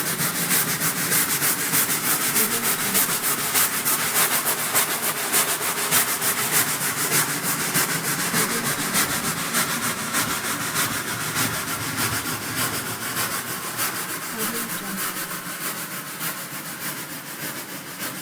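Steam locomotive running, its exhaust chuffing in a fast, even rhythm, gradually fading over the last several seconds.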